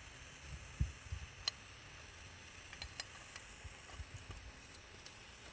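Faint handling sounds from an oil cooler line fitting clamped in locking pliers being moved about: a soft low knock a little under a second in, then a few light clicks, the sharpest about a second and a half in.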